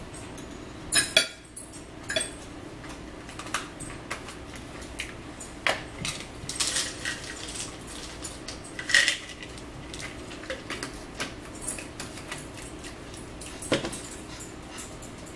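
Fork and plate clinking and tapping during a meal, with scattered sharp clicks and knocks; the loudest, a quick pair, comes about a second in.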